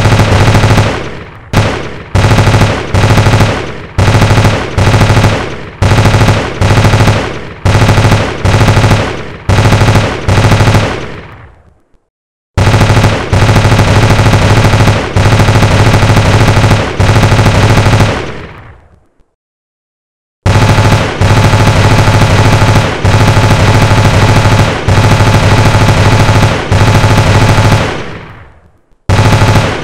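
Machine-gun fire in bursts: a string of short bursts about a second apart, then two long sustained bursts of several seconds each, and one brief burst near the end, each trailing off in a fading echo.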